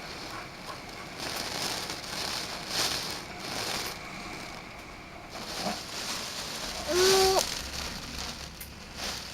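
Typhoon rain and wind noise with scattered crackles. About seven seconds in, a small child gives a short, loud vocal sound lasting about half a second.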